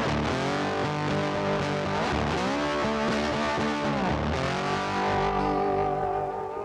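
Music: distorted electric guitar playing long held notes that bend up and down in pitch, dipping in level near the end.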